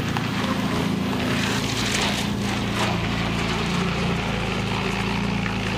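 Car engine idling steadily, an even low running note with no change in pitch.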